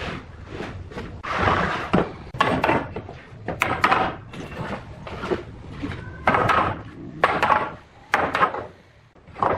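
Solid wood being worked and handled by hand: a run of irregular knocks and short scraping strokes, about a dozen in all.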